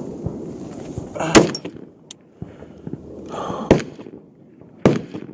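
Three high-power rifle shots on the firing line, sharp single reports about a second in, near the middle and near the end, the first the loudest.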